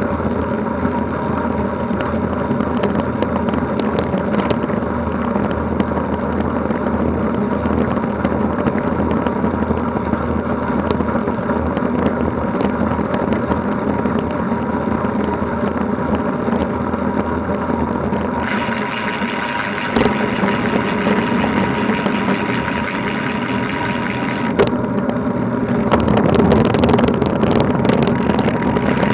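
Road noise from an action camera mounted beside a road bike's front wheel at speed: a steady rushing hum of the tyre on coarse tarmac, with wind and small rattling clicks.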